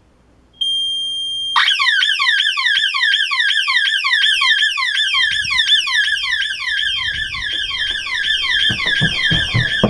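Black & Decker home security system's 120-decibel outside siren going off. A steady high beep starts about half a second in, and a second later a fast falling wail joins it, repeating about three to four times a second.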